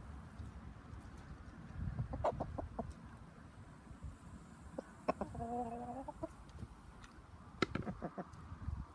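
Chickens pecking at scraps of food on the ground: clusters of quick sharp taps. About halfway through, one chicken gives a single short, drawn-out call.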